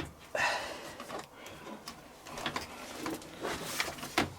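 Handling noises at a washing machine packed full of laundry: cloth rustling against the drum, with a few short clicks and knocks.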